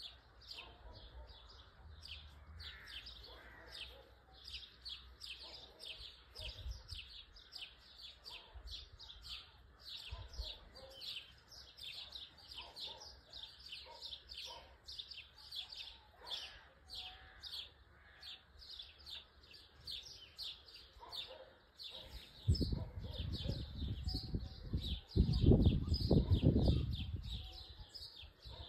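Continuous high-pitched chirping, very regular at about four chirps a second. For a few seconds near the end a loud low rumble rises over it.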